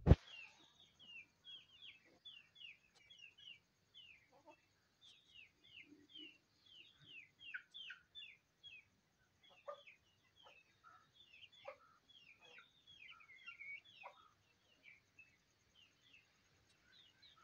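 Aseel chicks peeping over and over, short high cheeps that fall in pitch, several a second, with a few lower clucks from chickens in the yard from about ten seconds in. A sharp knock at the very start.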